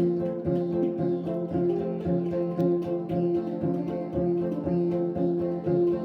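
Improvised instrumental music: a tonkori's open strings plucked over and over, a few fixed notes repeating in a steady rhythm.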